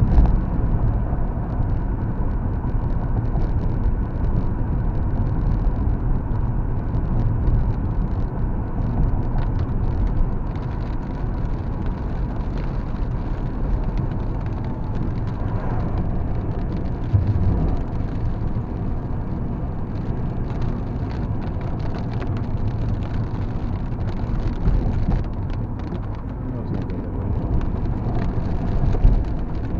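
Steady road and tyre noise of a car driving on a wet road in moderately heavy rain, heard inside the cabin, with scattered raindrops ticking on the windshield.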